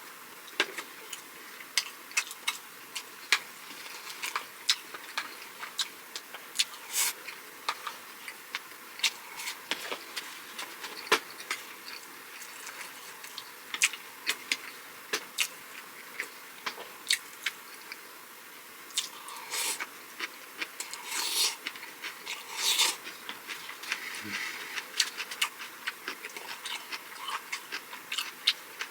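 Close-miked eating sounds: food being chewed, with many quick, irregular wet mouth clicks. A few longer, louder chewing or crunching bursts come about twenty seconds in.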